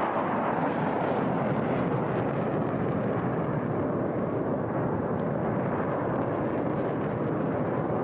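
Jet noise from a HAL Tejas fighter's GE F404 turbofan during a display manoeuvre. It is a steady, heavy rush that eases slightly as the jet moves away through a vertical loop.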